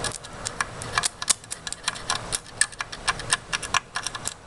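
Irregular crackling snaps, several a second, from electrical arcing where a live wire fed by a 13.8 V, 23 A power supply is held against motherboard components.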